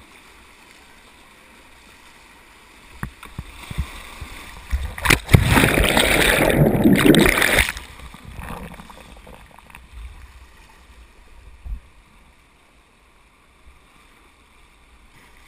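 Whitewater rushing steadily around a kayak, then about five seconds in a loud rush and splash of water over the camera that lasts nearly three seconds as the boat dips into the waves, with a few sharp knocks nearby.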